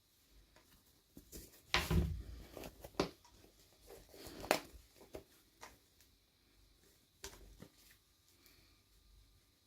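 Small plastic toy pieces and packaging being handled during an unboxing: scattered clicks, taps and light knocks. The loudest come about two seconds in, at three seconds and at four and a half seconds.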